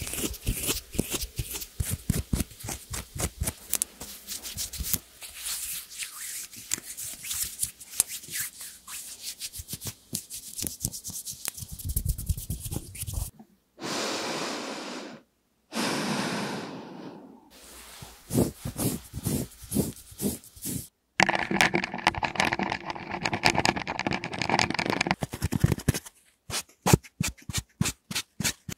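ASMR trigger sounds close to the microphone: long-nailed fingers scratching the palms in quick, dense strokes, then two long breaths into a handheld microphone, and near the end a melamine sponge (magic eraser) patted against the back of the hand about three times a second.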